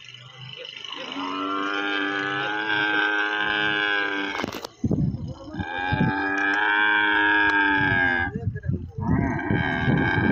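Dromedary camel calling in three long, drawn-out calls while held by its halter rope, a protest at being restrained. A sharp knock sounds between the first and second calls.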